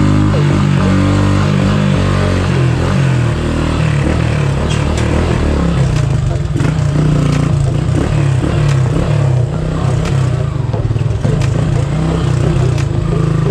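Motorcycle engine running and revving up and down while riding a rough, rutted dirt lane. From about four seconds in, frequent rattles and knocks from the bike jolting over the bumps come through.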